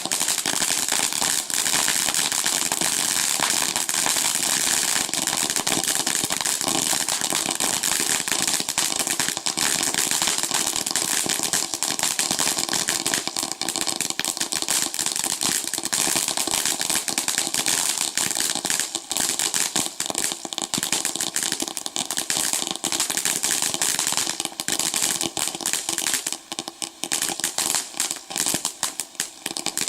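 A 'Dakota Snowstorm' ground fountain firework burning: a steady hiss packed with fast, dense crackling that keeps going, thinning a little near the end.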